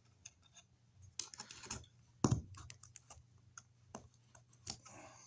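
Scattered clicks and taps of surface raceway (wire mold) being shaken and worked down into place over an outlet box, with a heavier knock about two seconds in and another near the end.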